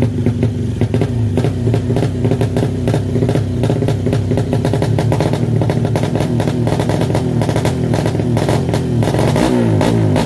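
Honda Supra underbone motorcycle with a bored-out 200cc single-cylinder four-stroke engine running steadily through a new Thai-style aftermarket exhaust, with a quick, even firing beat. Guitar music comes in near the end.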